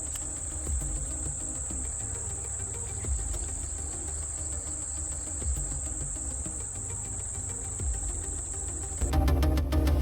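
Insects trilling in one steady, unbroken high-pitched band over a low rumble. About nine seconds in the trill stops and background music with a regular beat starts.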